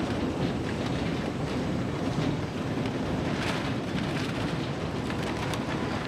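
UNTHA XR3000 Mobile industrial shredder running, a steady heavy machine noise with scattered crackles from wood being broken up.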